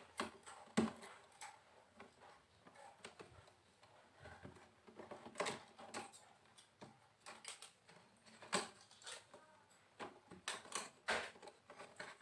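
Faint, irregular light clicks and taps of hand tools and plastic and metal TV parts being handled while an LED TV is taken apart to reach its backlight.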